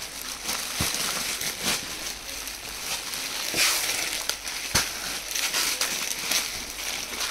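Clear plastic packaging crinkling and fabric rustling as a packed ladies' suit is taken out and unfolded, in irregular crackles with a louder stretch of crinkling about three and a half seconds in.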